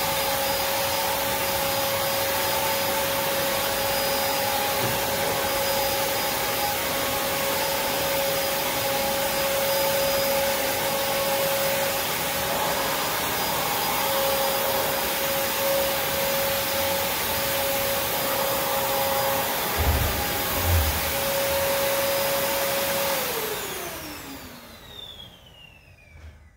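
Prolux X8 Elite backpack vacuum running steadily, with a rushing airflow and a steady motor whine. Two soft low bumps come near the end. It is then switched off, and the whine falls in pitch as the motor spins down.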